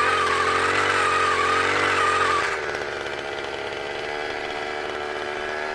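Gas-powered ice auger engine running at high speed under load while its beveler attachment cuts the bottom edge of the ice hole. About two and a half seconds in, the engine drops to a lower, quieter speed.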